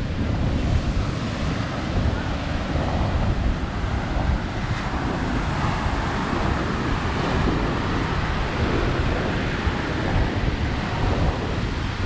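Ocean surf breaking and washing up the sand in a steady rush, with wind buffeting the microphone and adding a low rumble.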